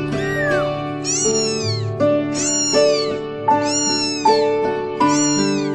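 A young kitten mewing again and again, five high cries that rise and fall, about one every second and a half, over background music.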